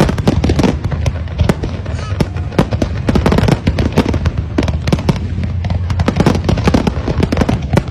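Fireworks display going off in a rapid barrage: many sharp bangs and crackles a second over a steady low rumble.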